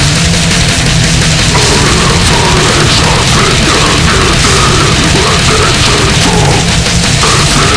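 Brutal death metal / goregrind song playing: heavily distorted guitars and drums in a dense, loud, unbroken wall of sound.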